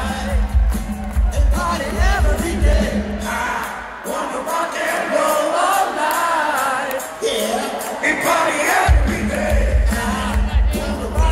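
Live rock band playing loudly in an arena, heard from the floor among the crowd, with voices singing along. A few seconds in, the drums and bass drop out and mostly singing voices carry on; the full band comes back in near the end.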